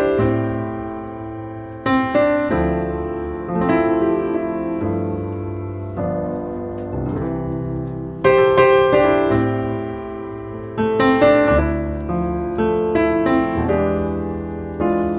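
Background piano music: notes and chords struck one after another and left to ring and fade.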